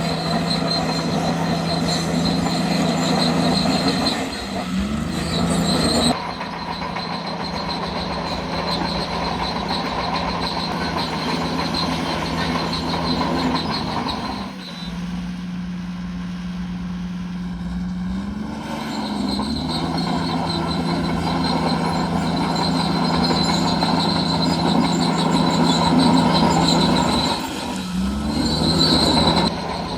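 Bulldozer working: its diesel engine runs steadily, and its pitch dips and recovers several times under load, over a steady high-pitched metallic squeal.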